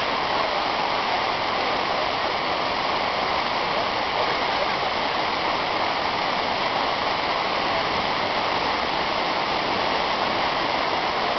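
Steady rush of water pouring down a waterfall, an even, unbroken noise with no distinct splashes.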